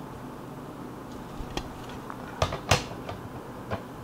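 Hard plastic PSA graded-card slabs clacking as they are handled and set down on a pile: about four sharp clicks and knocks, the loudest two close together a little past the middle.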